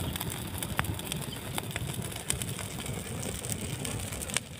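Open fire of dry leaves and sticks crackling, with scattered sharp pops over a low rushing noise, as a goat head's hair is singed off in the flames.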